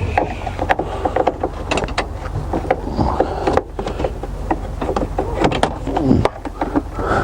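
Irregular clicks, knocks and rattles of car dashboard vents and ducting being unscrewed and worked loose by hand, over a steady low hum.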